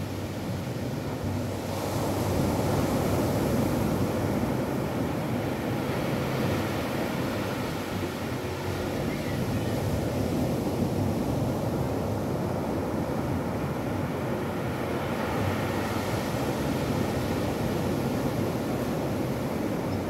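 Ocean surf breaking and washing up a flat sandy beach: a steady rush of waves that swells about two seconds in and again near the end.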